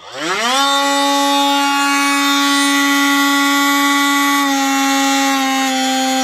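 Bauer cordless oscillating multi-tool starting up and running without load. It winds up over about half a second to a steady buzzing pitch, which sags slightly about four and a half seconds in.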